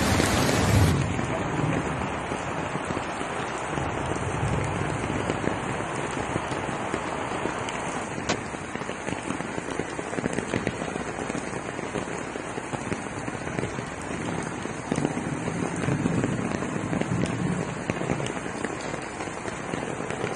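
Steady rushing of a brown floodwater torrent pouring down a street, mixed with falling rain.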